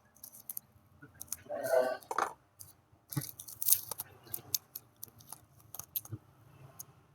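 Paper being handled for a paper-squishy craft: irregular crinkling and rustling with scattered clicks, and two louder rasping stretches about a second and a half in and again near four seconds.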